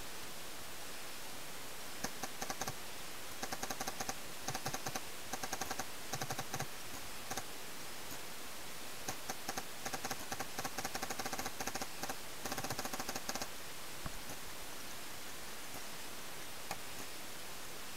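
Paintball markers firing in rapid strings of sharp pops, volley after volley, which stop a little before the end. A steady hiss lies underneath.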